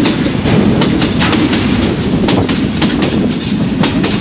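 Freight train of covered goods wagons rolling past close by: a steady low rumble with wheels clicking irregularly over the rail joints, and a brief high wheel squeal about three and a half seconds in.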